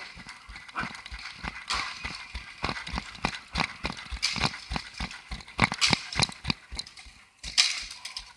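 Running footsteps: quick, evenly spaced footfalls, about three a second.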